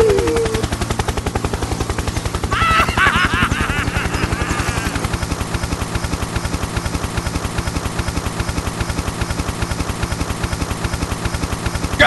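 A small motor running with a rapid, even clatter. A brief warbling, pitched sound comes over it about three seconds in.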